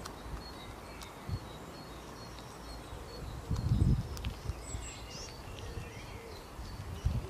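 Outdoor garden ambience: scattered faint songbird chirps and short whistled glides over a steady low background, with two brief low rumbles, one about halfway through and one near the end.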